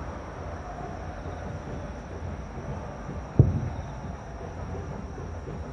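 A single distant aerial firework shell bursting with a sharp bang about three and a half seconds in, its low rumble dying away over about half a second, over a steady low background rumble.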